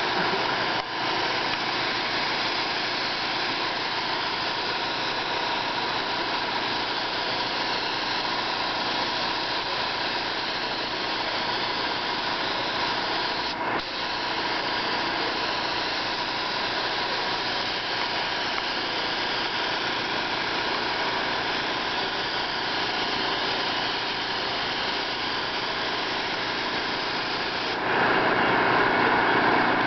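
Steady hiss of a compressed-air cup spray gun spraying paint, with a mechanical drone under it. It breaks briefly about a second in and again about 14 seconds in, and gets louder near the end.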